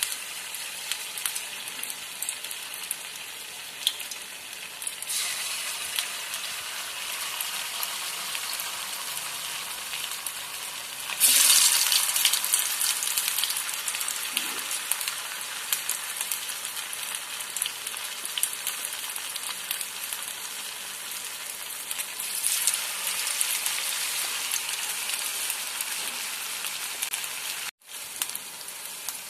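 Aloo fingers (semolina and potato) deep-frying in hot sunflower oil: a steady crackling sizzle that swells louder three times, most strongly about eleven seconds in. It breaks off for a moment near the end.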